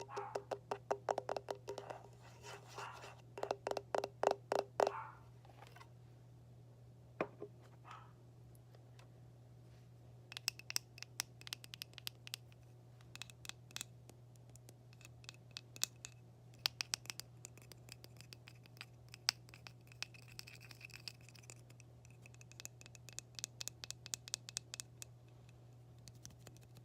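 Quick tapping on hard objects. For the first five seconds the taps ring with a pitch. After a short pause they turn to fast, light clicking and scratching in clusters. A steady low hum runs underneath.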